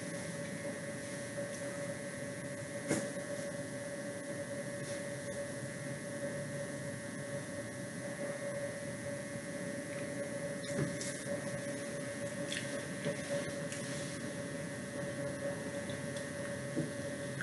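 Steady electrical hum and hiss, with one sharp click about three seconds in and a few fainter clicks in the second half.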